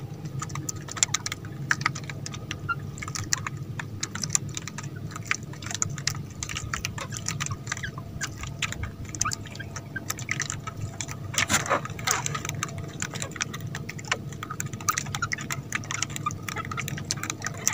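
Irregular light clicks and knocks with water dripping and splashing as a set fishing line is hauled up out of the water, with a louder cluster of clicks about twelve seconds in.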